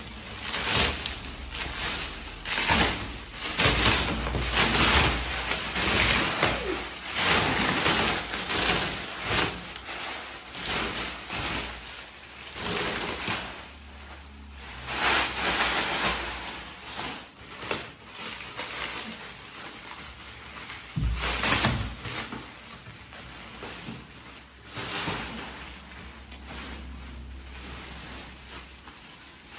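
Thick polythene wrapping being pulled, crumpled and tugged off a rolled mattress: irregular crinkling and rustling in quick bursts, busiest in the first half.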